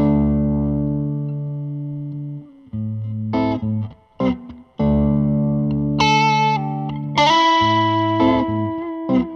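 Intro music led by a distorted electric guitar: long ringing chords broken by a few short chopped chords, with a higher lead melody with sliding notes joining from about six seconds in.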